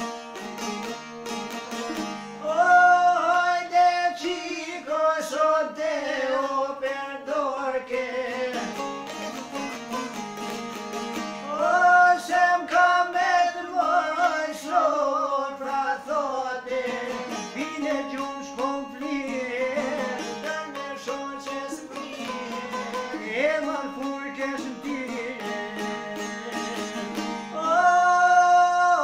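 Two men singing an Albanian folk song together in unison over two fast-strummed çifteli, the long-necked Albanian lutes. The voices come in about two and a half seconds in, after a short instrumental opening.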